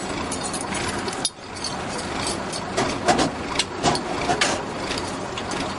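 Fire truck engine running steadily, with several sharp knocks and clanks of equipment being handled between about three and four and a half seconds in.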